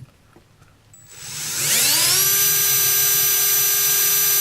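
Electric drill with a small titanium-coated high-speed steel bit starting up about a second in, its whine rising quickly in pitch, then running steadily at full speed while drilling into a piece of metal.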